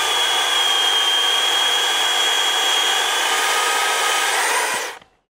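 Stihl electric chainsaw running at full speed and cutting through wood, a steady high motor whine over the chain's hiss, cutting off suddenly near the end.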